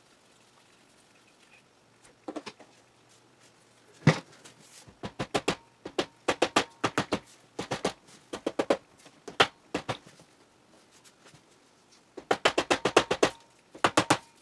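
Hand tools working on a two-stroke motorcycle engine's cylinder: one sharp knock, then quick runs of sharp clicks and taps, as the cylinder is worked loose for removal.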